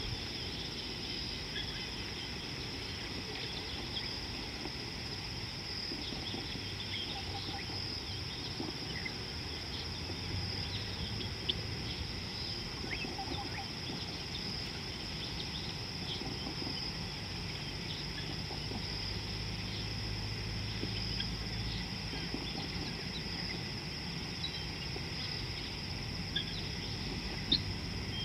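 Outdoor ambience dominated by a steady, high-pitched insect chorus, with a low steady rumble underneath and scattered brief clicks and chirps.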